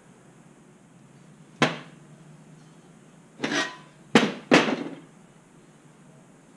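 Laser-cut steel bracket plates knocking against each other and against a steel welding table: a sharp clank about a second and a half in, then three clanks close together around three and a half to five seconds in, the last two loudest with a short ring.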